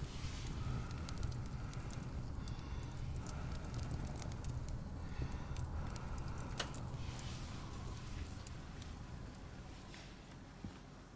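Wood fire crackling, with scattered sharp pops over a steady low rumble, growing quieter near the end.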